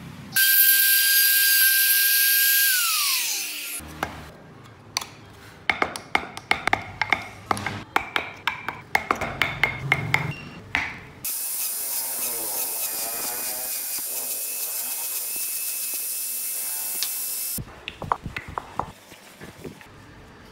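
Woodworking on small wooden wheels. A small power tool runs with a steady high whine and winds down. Then comes a quick run of scraping ticks as a hand chisel cuts the wheel spokes, and then a power tool runs again with a steady hiss.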